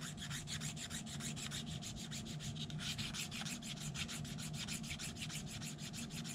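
Small file rasping back and forth along the inside edge of a phenolic (Formica) template, in quick, even strokes, smoothing the flats left by a Dremel cut.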